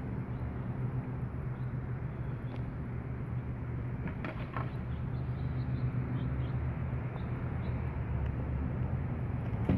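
Outdoor backyard ambience: a steady low mechanical hum, with a few faint, short high chirps about halfway through.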